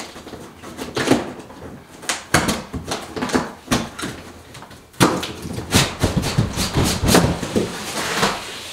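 Large cardboard box being handled: irregular rustling, scraping and knocks of cardboard. From about five seconds in, a louder, more continuous cardboard scraping as the lid is slid up off the base of the box.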